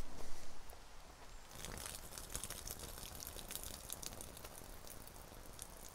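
A few footsteps on dry leaf litter. Then, about a second and a half in, pasta water is poured out through a strainer onto the forest floor: a faint, steady splashing hiss with small crackles.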